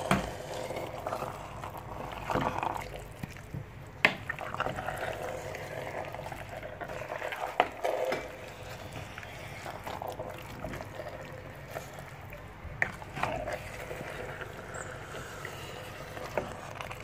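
Pot of vegetable soup with leafy greens and fish simmering, a steady bubbling sizzle, with a few sharp clicks scattered through.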